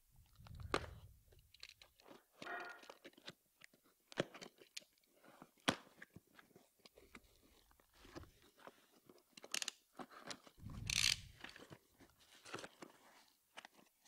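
Cardboard shipping box being opened by hand: packing tape peeling and tearing, with cardboard and bubble wrap crackling in irregular clicks and crinkles. Two dull bumps come from the box being handled, one near the start and one about eleven seconds in.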